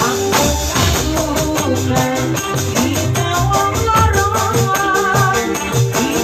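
Music with a hand tambourine jingling fast and evenly, about eight strokes a second, over a bass beat and a wavering melody line.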